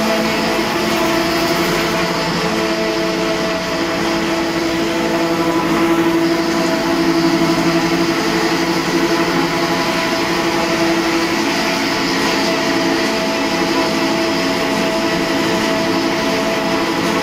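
Two-stage raffia plastic recycling machine running: a steady mechanical drone with several held tones from its motors and drives, unchanging throughout.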